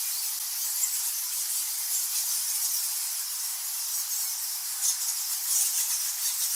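Bats squeaking and chittering: a dense, high-pitched wash of calls with rapid faint clicks, growing a little louder about five seconds in.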